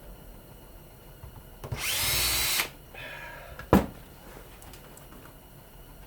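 Cordless power drill or driver running for about a second, its pitch rising as it spins up, then a single sharp metal knock.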